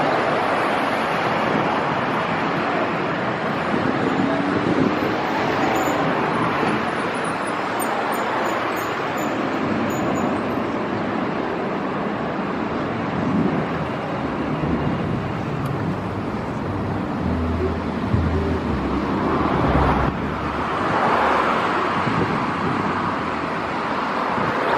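Steady roar of distant engine noise, with a deeper rumble swelling about three quarters of the way through.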